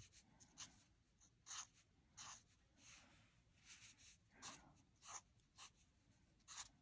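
Sharpie felt-tip marker drawn across paper in short, faint strokes, about two a second, as lines of hair are inked.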